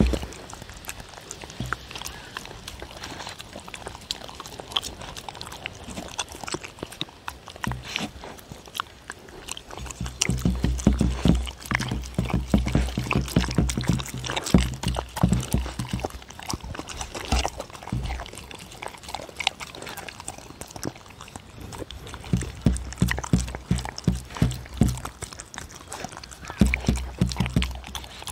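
Dogs eating turkey out of a wooden bowl close to a microphone: wet licking, smacking and chewing, full of small clicks as tongues and teeth work the food. It is louder and heavier in two stretches, from about ten seconds in and again near the end.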